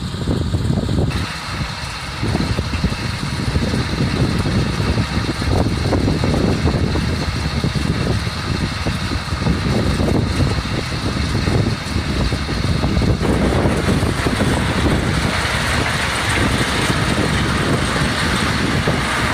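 Tractor engine running steadily with a Barigelli two-row beet lifter working behind it, a dense low rumble. A brighter hiss builds from about two-thirds of the way through.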